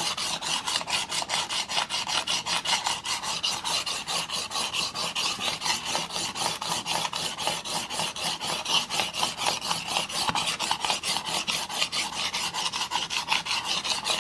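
Steel single-bevel broadhead scraping on a 400-grit diamond sharpening plate in a rolling guide, in quick, even back-and-forth strokes with no down pressure. This is the 400-grit stage of sharpening, raising a burr on the edge.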